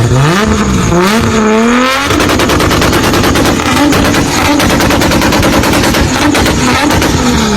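Toyota Supra engine revving up for about two seconds, then held high while the exhaust fires a rapid, continuous string of sharp pops and bangs.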